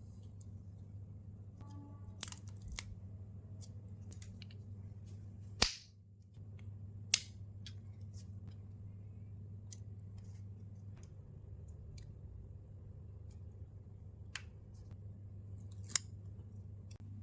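Scattered sharp clicks and snaps of the packaging and the small camera being handled while unboxing, two of them louder around six and seven seconds in, over a steady low hum.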